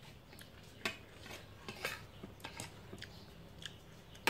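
Metal spoon and fork clinking and scraping against a plate while eating, a few short sharp clicks about a second apart, the loudest near the end.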